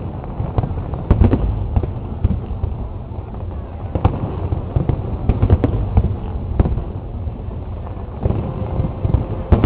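Aerial fireworks display: firework shells bursting in quick succession, many sharp bangs over a continuous low rumble.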